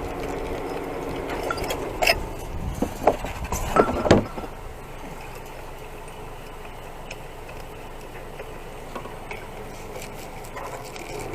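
A steady low engine hum that dies away about three seconds in, with a cluster of sharp knocks and clatter between about two and four seconds, then only a low steady background.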